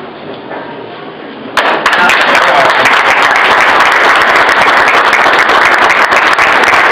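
Crowd applauding, with dense, fast clapping that starts suddenly about a second and a half in and keeps up steadily.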